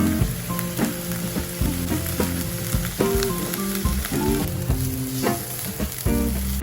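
Food sizzling as it fries in a pan, with occasional clicks as it is stirred.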